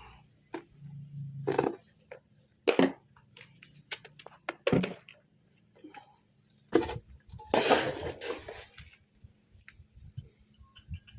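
Metal tools and gearbox parts clinking and knocking against each other in a series of separate sharp strikes, with a longer scraping rattle about eight seconds in.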